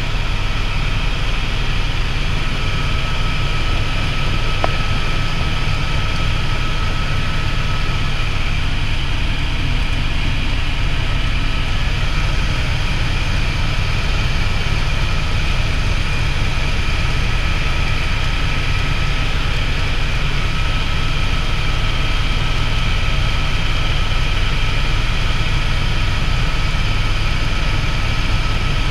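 Helicopter in flight heard from inside the cockpit: steady, loud low rotor and engine noise, with a thin high whine above it.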